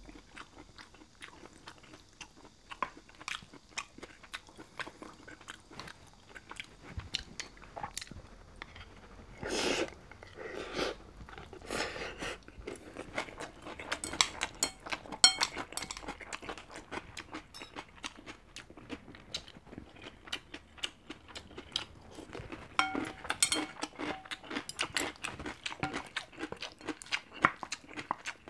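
Close-miked chewing and eating of bibimbap, with many short clicks and scrapes as metal chopsticks and a wooden spoon work against the ceramic bowl.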